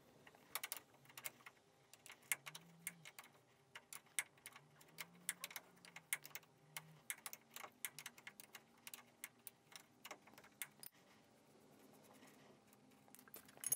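Faint, irregular metallic clicks, a few a second, from a spanner being worked on the bolt of the engine's anti-torque mount while it is loosened. The clicks stop a few seconds before the end.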